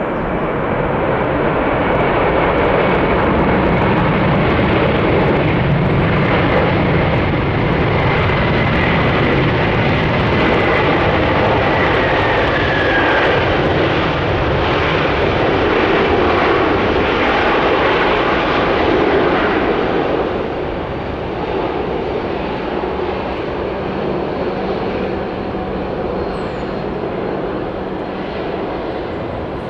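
Boeing 747-400F's four jet engines running loud during the landing rollout. The noise builds over the first few seconds, with a faint falling whine midway, then eases about 20 seconds in.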